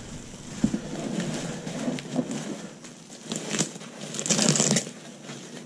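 Bubble wrap rustling and crinkling as it is pulled open and handled, with scattered small clicks and a louder burst of crinkling about four and a half seconds in.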